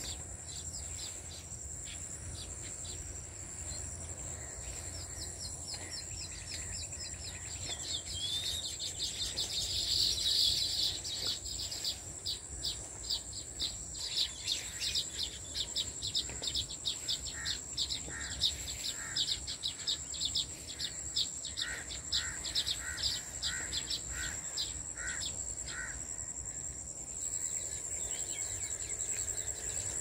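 Steady high-pitched insect buzz, with small birds chirping in fast runs of short notes over it for most of the stretch; a second, lower series of chirps joins in the later part, and the chirping dies away near the end.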